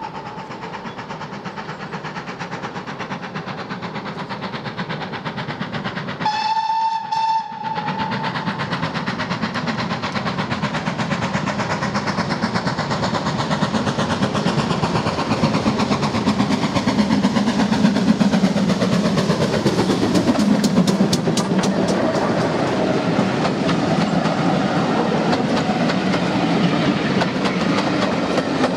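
A GWR Manor class 4-6-0 steam locomotive blows one short whistle about six seconds in, then draws nearer, its running growing louder until it passes close by. Its coaches follow with a rapid clickety-clack over the rail joints.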